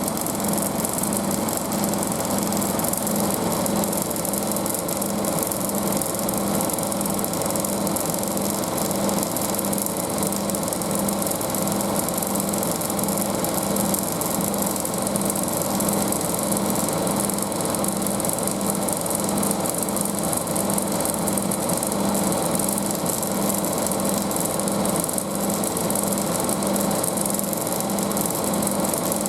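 Front-loading washing machine spinning at speed: a steady motor and drum whir with a regular pulsing in the low hum, and hardly any cabinet vibration.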